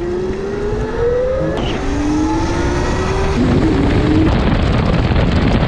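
Electric dirt bike and electric go-kart accelerating side by side: electric motor whine rising in pitch over heavy wind noise on the microphone. The whine starts afresh twice at cuts, and in the last part wind and road noise dominate.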